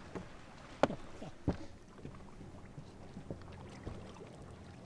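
Quiet background aboard a bass boat: a low steady hum, broken by two sharp knocks, the first about a second in and the louder, the second half a second later.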